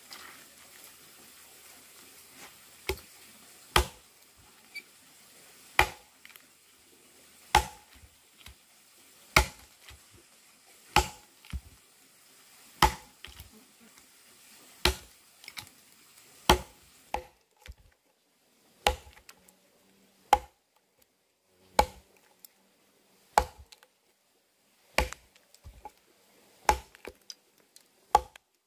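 Small axe chopping into a log to hollow it out into a trough: sharp single chops of the blade into the wood, about one every one and a half to two seconds, around twenty in all.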